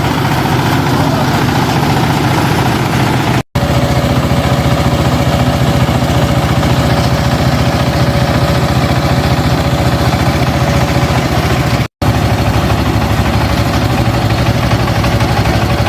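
Combine harvester engine running steadily at idle. The sound drops out sharply twice, about three and a half and twelve seconds in.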